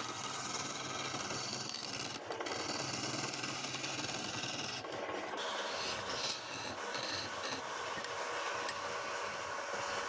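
Wood lathe running steadily while turning a palm wood ball, with the high hiss breaking off briefly twice, about two and five seconds in.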